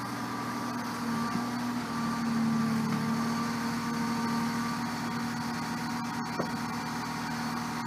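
Volvo EC25 mini excavator's diesel engine running steadily while the machine works its bucket against a lump of concrete, the engine note swelling briefly about two to three seconds in.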